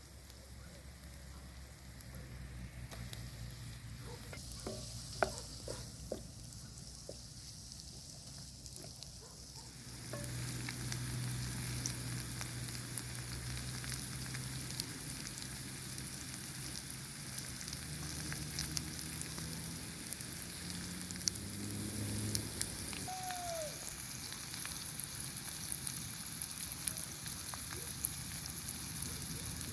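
Food frying with a steady sizzle that jumps louder about ten seconds in, after a quieter stretch broken by a few sharp clicks.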